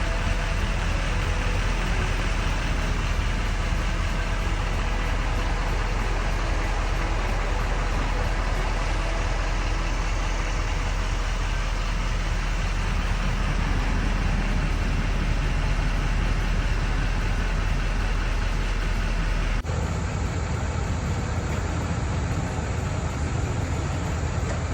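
Steady vehicle engine and road noise with a strong low hum. About twenty seconds in, the sound changes abruptly to a similar but slightly different steady engine noise.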